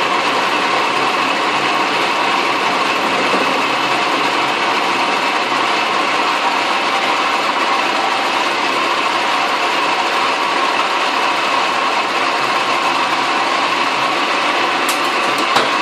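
Metal lathe running steadily while a cutter in its chuck mills a metal block clamped in a milling attachment on the cross slide. The machinist thinks the cut may be a little on the large side.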